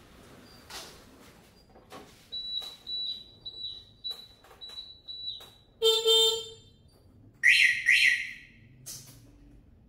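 A scooter's horn honks once briefly, after a run of high electronic beeps at about two a second; two harsh high chirps follow about a second and a half later and are as loud as the honk.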